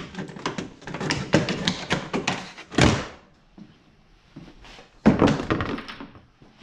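Hard plastic radiator cover clicking and rattling as its push-pin clips come free and it is pulled out and handled. About five seconds in, a loud thunk as it is set down on a wooden workbench.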